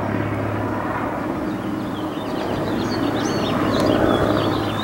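Steady drone of a helicopter and a twin-engine airplane flying overhead, swelling about four seconds in. Small birds chirp over it from about halfway through.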